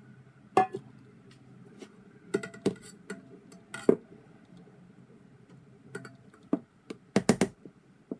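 Spatula knocking and scraping against stainless steel mixing bowls while batter is transferred and folded, with a bowl set down on the counter: scattered sharp clinks and taps, and a quick cluster of them near the end.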